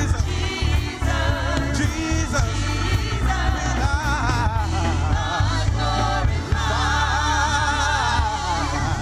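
Church praise team singing a gospel worship song with band accompaniment and a heavy bass line; the voices hold long notes with vibrato near the end.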